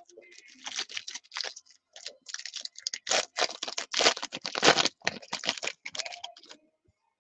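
A 2019 Topps Inception trading card pack's wrapper being torn open and crinkled by hand: a quick run of crackling rustles, loudest in the middle, that stops shortly before the end.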